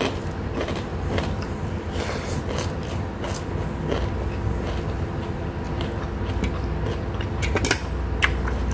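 Close-up eating sounds: chewing and soft scattered clicks of fingers working rice on a plate, with a few sharper clicks near the end as a metal spoon is picked up. A steady low hum runs underneath.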